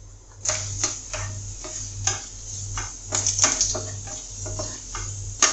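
Wooden spatula stirring and scraping around a non-stick wok, knocking against the pan in a quick, irregular run of clicks that starts about half a second in.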